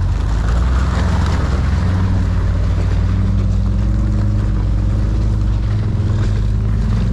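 Jeep's engine running steadily at low revs while crawling along a snowy off-road trail, its pitch rising and falling only slightly, with a rushing noise over it in the first couple of seconds.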